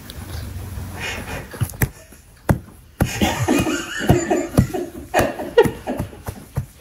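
A person laughing in short, broken bursts from about three seconds in, after a few soft ticks.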